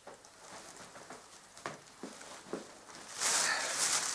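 Handling noise as troll dolls are moved about: a couple of light knocks, then about three seconds in a loud, hissy rustling as the next doll is brought out.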